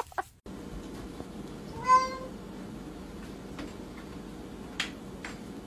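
A domestic cat meows once, a short call that rises and falls, about two seconds in. Near the end come two sharp clicks as it paws at a door handle.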